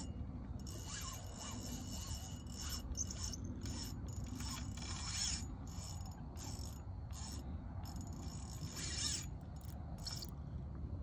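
Fishing reel being cranked under the load of a large hooked fish, an alligator gar, its gears giving mechanical clicking and grinding in uneven spurts.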